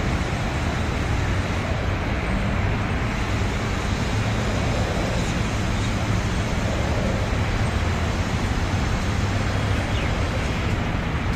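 Steady outdoor rumble and hiss with no distinct events.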